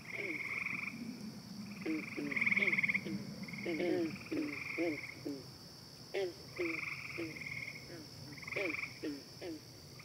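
Farm ambience recording of frogs calling at night: many short, pitch-sweeping croaks overlap with pulsed trills lasting half a second to a second, over a steady high drone. The recording plays back with its bass cut by EQ.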